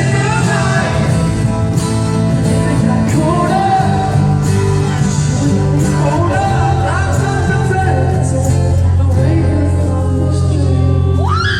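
Live band playing a song with singing: steady bass and drums under a sung melody, played loud through a concert sound system.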